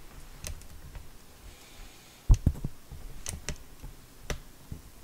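Handling noise at a workbench: scattered light clicks and knocks, with a cluster of three sharper knocks about two seconds in.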